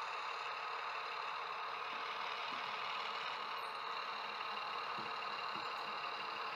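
Steady mechanical whirring hum of a model railway layout in operation, with a couple of faint low ticks about five seconds in.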